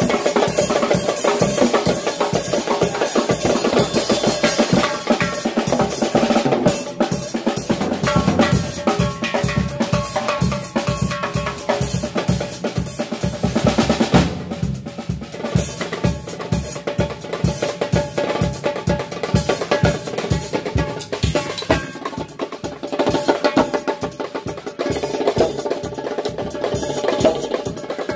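Djembe and drum kit playing together in a fast, steady drum jam: djembe strokes over snare, bass drum and cymbals.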